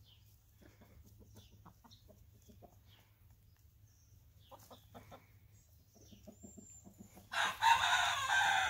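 Hens clucking softly and repeatedly as they forage. Near the end a much louder, rough sound lasts about a second and a half.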